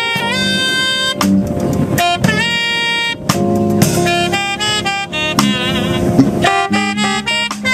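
Live jazz band: a saxophone plays the lead melody in quick stepping phrases, with a wavering held note about six seconds in, over drum kit, keyboard and bass.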